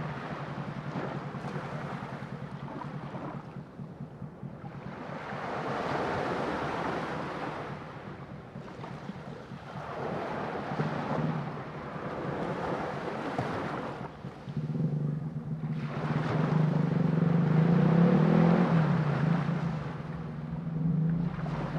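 Sea waves washing in and drawing back in slow swells every few seconds, the biggest about two-thirds of the way through. A low steady hum sits underneath and grows louder in the second half.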